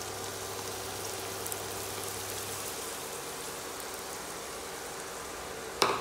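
Chopped onions sizzling steadily in hot vegetable oil in a wok. A sharp knock sounds near the end.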